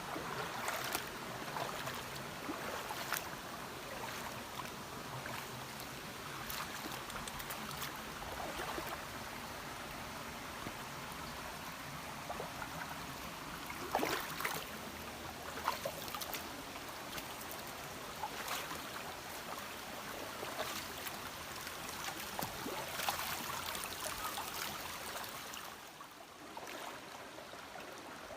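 Shallow river water rushing and trickling over stones, with scattered short sharp sounds on top. It drops in level a couple of seconds before the end.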